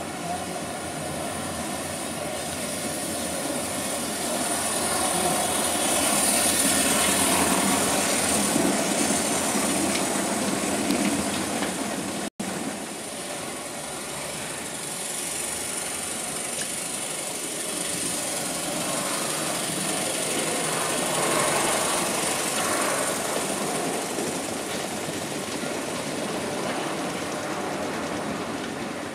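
Model trains running on layout track: a steady rolling rumble and whirr that swells twice as trains pass close. The sound drops out for an instant about twelve seconds in.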